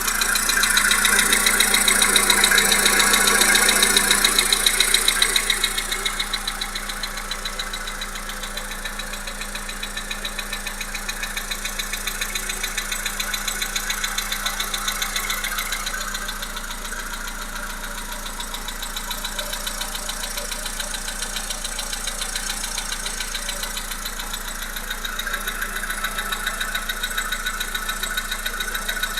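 Volkswagen Polo Sedan's 1.6 CFNA four-cylinder petrol engine running with a rapid, even knock. It is louder for the first six seconds or so, then settles.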